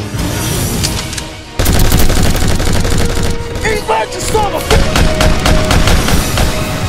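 Dramatic soundtrack music, then about a second and a half in, rapid automatic rifle fire breaks in loudly and goes on in bursts over the music, as a film gunfire sound effect.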